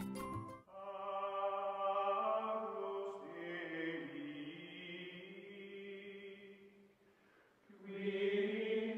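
Outro music of sustained, choir-like held chords that fade out about seven seconds in, then swell again near the end.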